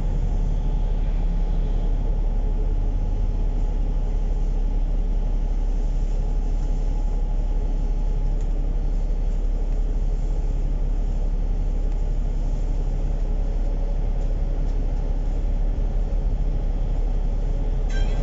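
A KMB bus running steadily on route, heard from inside the cabin: a constant low rumble of engine and road noise with a faint steady hum, and no change in pace.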